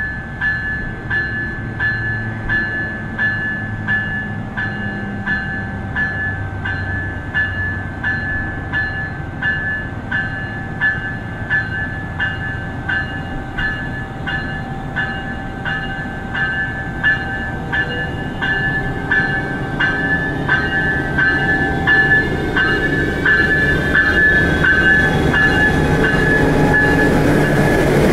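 Electronic bell of a Siemens SCV-42 Charger diesel locomotive ringing steadily, about one and a half strokes a second, as the locomotive pulls away from a station stop. Its diesel engine rumbles underneath, growing louder with a rising whine in the second half as the locomotive draws close and passes.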